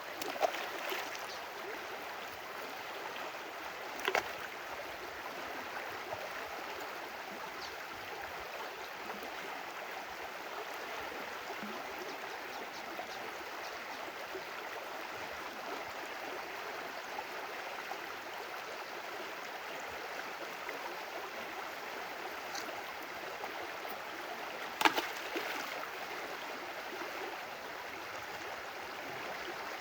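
Stream water running steadily, with a few brief sharper sounds, the loudest about 25 seconds in.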